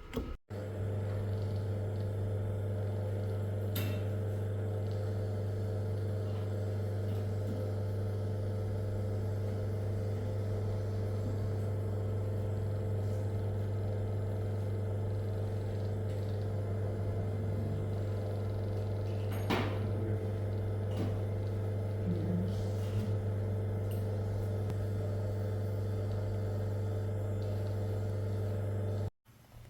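A steady low hum at an even level, with a couple of faint clicks; it cuts off abruptly near the end.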